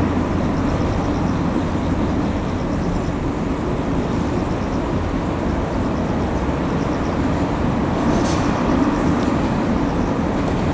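Railway rolling stock being moved slowly through a depot yard: a steady low rumble, with one short sharp high-pitched noise about eight seconds in.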